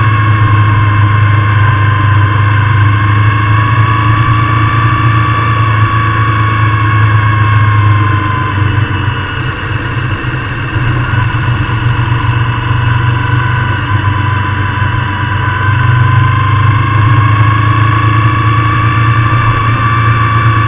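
Motorcycle engine running at road speed while riding. Its pitch and loudness drop about eight seconds in as it eases off, then rise again about sixteen seconds in as it pulls.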